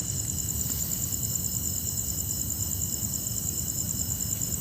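Night chorus of crickets: a steady, fast, high-pitched pulsing trill with fainter steady trills at lower pitches, over a low rumble.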